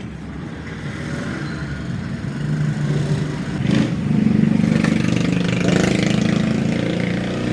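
An engine running, growing louder over the first four seconds or so and then holding steady.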